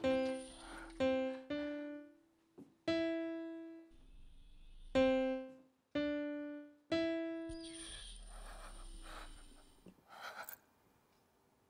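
Piano notes struck slowly one at a time, six in all, each left to ring and fade with pauses between, followed by a few seconds of soft breathy noise that dies away.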